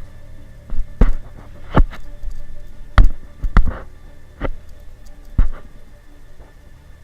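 Airsoft shots fired singly: about six sharp cracks at uneven intervals over roughly five seconds, the loudest about three seconds in.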